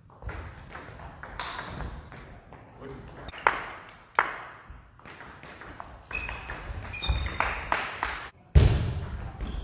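Table tennis rally: sharp clicks of the celluloid-type ball striking bats and the table, the loudest two about three and a half and four seconds in, with short shoe squeaks on the hall floor and players' voices. A loud thump near the end.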